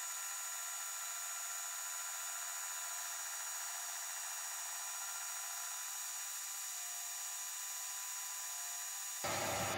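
Metal lathe running steadily as it turns a welded steel riser block, a thin, even whine of several held tones with no low rumble.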